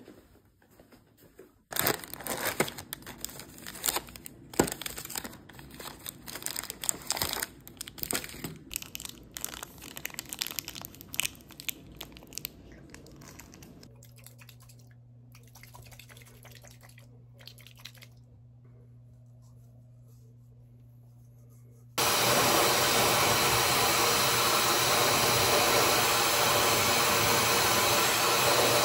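Rustling and crinkling crackles for the first several seconds, then a quieter stretch with a low steady hum. About two-thirds of the way through, a handheld hair dryer switches on and runs with a loud, steady rush of air.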